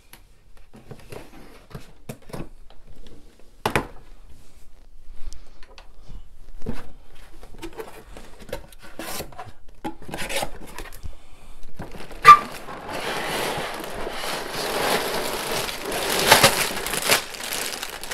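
Cardboard LEGO set box being opened: scattered scrapes and taps as the sealed flap is worked open, a sharp snap about twelve seconds in, then a continuous rustle and crinkle as the box is tipped and the plastic parts bags and cardboard inside slide and shift.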